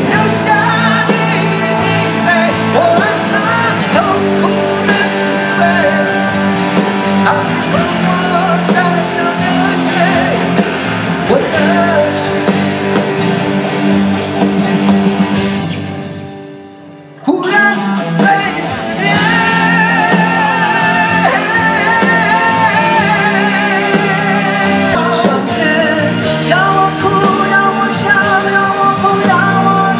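Live pop-rock music in a large arena: male vocals over acoustic and electric guitars. About sixteen seconds in, one song fades out and a second song starts abruptly a moment later.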